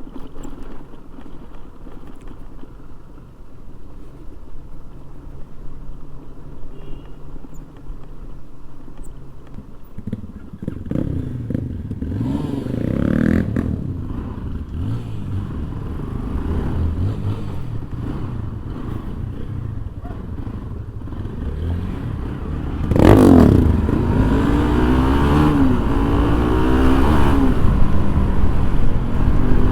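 Motorcycle engine running at a steady low speed, then revving up and down from about ten seconds in. It gets louder from about 23 seconds, with quick rises and falls in revs.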